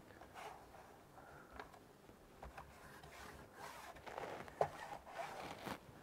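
Faint scraping and rustling as hands work a rubber foot strip with double-sided VHB tape onto a laptop's plastic base, with a sharper click about four and a half seconds in.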